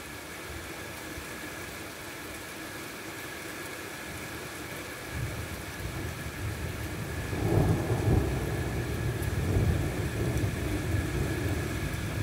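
Rolling thunder: a low rumble builds about halfway through, is loudest a couple of seconds later, then keeps rumbling.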